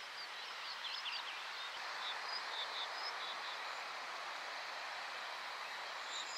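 Faint outdoor ambience: a steady even hiss with small birds chirping, a quick flurry of chirps about a second in and a few short high calls after.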